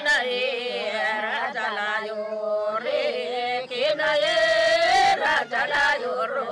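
Singing with a wavering, ornamented melody over a steady held drone: background vocal music.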